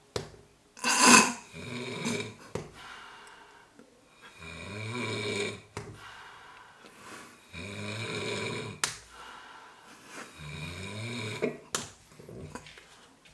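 A person snoring in a slow, regular rhythm, one rough, buzzing snore every three seconds or so. The first, about a second in, is the loudest and harshest.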